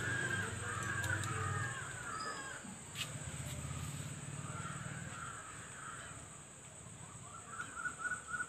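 Crows cawing in three hoarse bouts, the last a run of quick caws near the end, over a low hum that fades out about halfway through.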